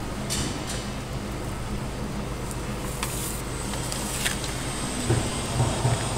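Steady low hum of a shop's background noise, with a few brief rustles of handling as the camera brushes through hanging faux fur.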